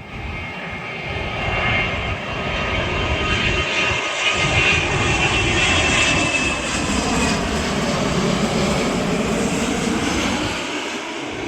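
Jet airliner's engines passing overhead: a broad rumble with a high whine over it, swelling to its loudest around the middle and then fading away.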